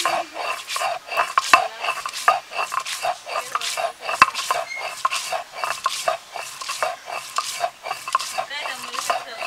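Stone roller grinding sliced onions against a stone slab (shil-nora), rocked back and forth in a steady rhythm of gritty scraping strokes, about three a second, with a few sharp clicks of stone on stone. The onions are being crushed into a paste.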